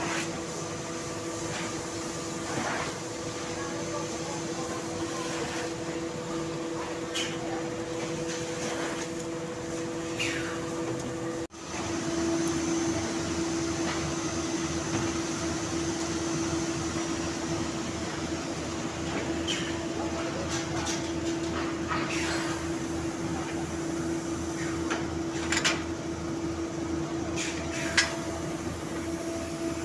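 Plywood mill machinery running with a steady hum, broken by a few short knocks and clatters. The hum shifts slightly at an abrupt cut about a third of the way in.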